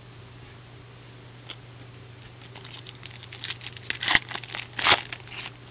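Trading-card pack wrapper being torn open and crinkled: a quick run of sharp crackles from about two and a half seconds in, loudest near the end.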